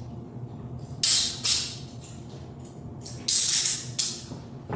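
Metal handcuffs ratcheting shut on wrists: two pairs of short rasping bursts, the first pair about a second in and the second about two seconds later.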